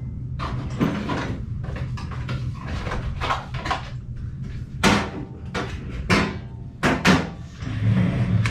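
Someone rummaging in a cupboard: about eight irregular knocks and clunks of doors and handled objects, over a steady low hum.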